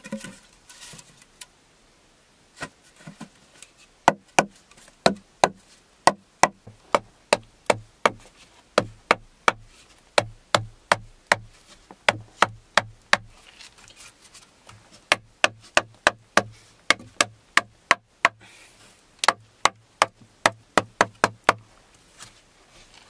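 Repeated sharp knocks of wood on wood as round wooden poles are tapped and set into place. The knocks are sparse at first, then come steadily at about two a second from about four seconds in until shortly before the end, each with a short low thud.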